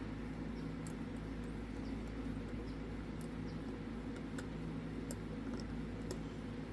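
Sparse faint ticks and clicks of a lock pick working the pins inside a Zeiss Ikon SK6 cylinder lock, over a steady low hum.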